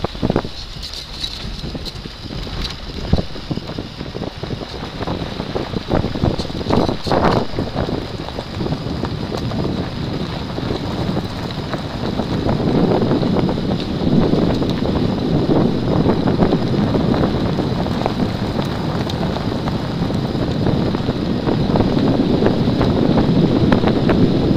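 A four-wheel-drive vehicle driving over a gravel dirt track, heard from inside its open-roofed cab: steady engine and tyre noise with wind on the microphone and a few knocks from bumps. It grows louder about halfway through.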